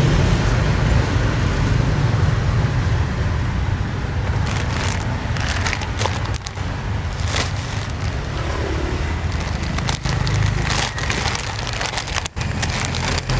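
Steady low rumble of outdoor background noise, with scattered clicks and crackles over it.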